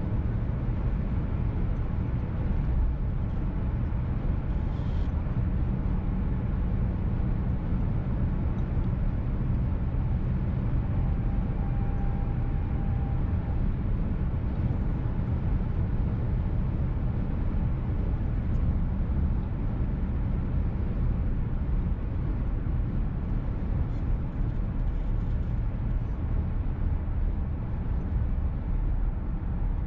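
Cabin noise of a VW T-Roc petrol car driving along: a steady low rumble of engine and tyres heard from inside the car. A faint brief tone shows up about halfway through.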